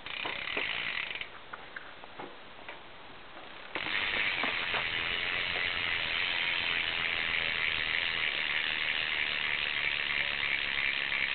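BMX rear cassette hub (Mission) freewheeling as the rear wheel spins, its pawls ratcheting in a rapid, continuous clicking. A short spin comes in the first second, then a longer steady spin starts about a third of the way in.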